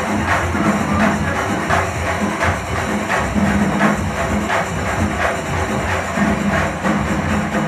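Kerala festival percussion ensemble (melam) playing: drums and cymbals keep a steady, driving beat, with a low held tone sounding on and off.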